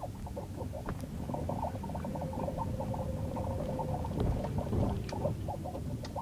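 Rapid, uneven run of short chirps from the rear of a Lexus RX450h, heard over a low rumble. A steady tone sounds underneath for a couple of seconds in the middle.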